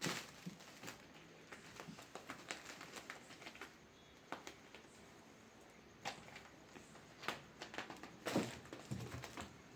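Cats at play: irregular light taps, clicks and scuffling, with a louder scuff a little after eight seconds in.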